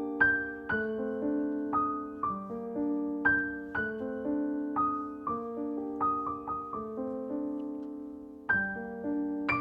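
Background piano music: a slow, gentle melody of single struck notes over sustained chords, each note ringing and fading, with a short lull at about eight seconds in.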